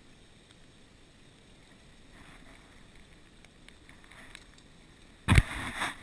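Faint steady hiss, then about five seconds in a sudden loud thump and half a second of rustling close to the microphone: handling noise as the small fish is lifted up and taken in hand.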